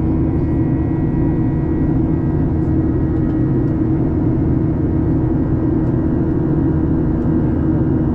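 Cabin noise of a Boeing 737 in flight shortly after take-off, heard from inside the cabin: the jet engines and airflow make a steady, unbroken rumble with a constant low hum running through it.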